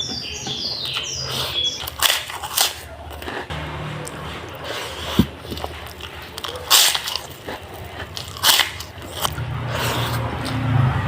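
Close-up eating sounds: kerupuk crackers and fried food being bitten and chewed, with several sharp crunches. A bird chirps in quick falling notes during the first second and a half.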